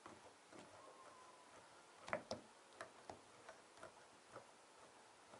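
Faint, irregular ticking and creaking from a hand-squeezed glue-tab dent lifter drawing on a glued pulling tab on a hail-dented car hood, as the hood panel and the glue take up the strain. The ticks come more often and a little louder from about two seconds in.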